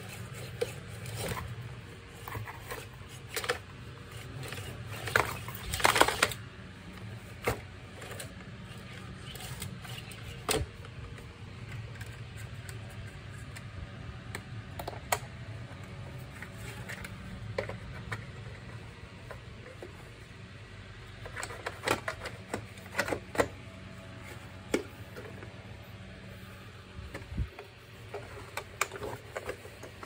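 Plastic casing of a compact vacuum cleaner being handled and fitted back together: irregular clicks, knocks and rattles, busiest about six seconds in and again around twenty-two seconds.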